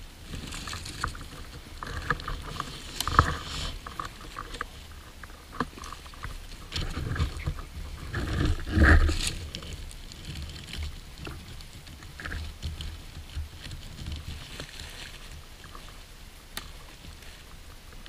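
Close handling noise: camouflage clothing rustling and the knocks and clicks of a camera tripod being swung round and adjusted, with the loudest bump about nine seconds in.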